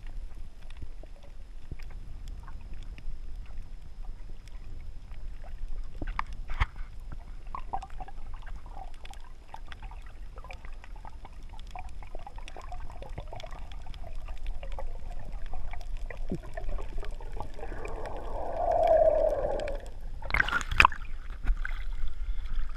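Muffled underwater sound picked up by a GoPro HERO3 in its waterproof housing: a low rumble with scattered faint clicks and a louder bubbling stretch late on, then a couple of sharp splashes near the end as the camera breaks the surface.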